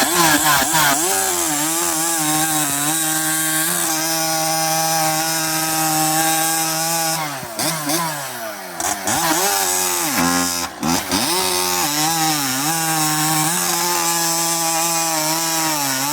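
Husqvarna 372XP two-stroke chainsaw with an internal-stinger expansion pipe cutting wood at full throttle, holding a steady high RPM through the cut without bogging. About seven seconds in it comes out of the wood and the revs drop and blip for a few seconds. Then it goes back in for a second steady cut.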